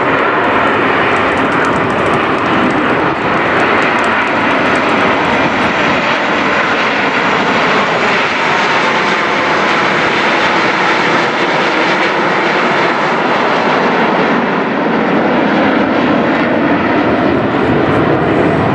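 A formation of Frecce Tricolori Aermacchi MB-339 jet trainers flying past, their jet engines making a steady, loud noise.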